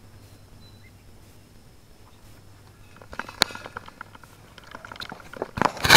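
Knocks and clatter of a steel front receiver hitch being picked up and handled, with a sharp knock about three and a half seconds in and the loudest clatter near the end; before that only a low steady hum.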